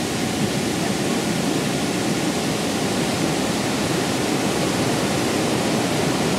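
Fast-flowing mountain river rushing through a rocky gorge: a steady, even rush of water.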